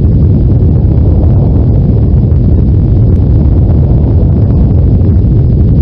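Loud, steady deep rumble of an earthquake, a dense low noise with no breaks.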